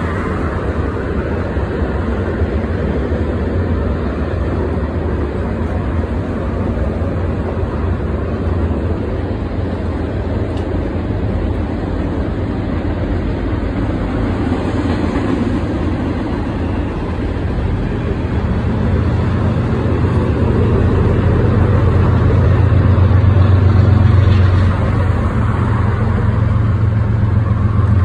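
Union Pacific freight train rolling past with a steady low rumble of its freight cars, mixed with cars driving by on the road in front. The deep rumble grows louder over the last ten seconds.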